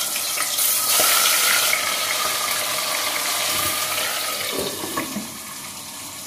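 Aar fish pieces frying in hot mustard oil in a kadhai under a glass lid: a steady, loud sizzle that dies down about five seconds in, with a couple of clicks from the lid.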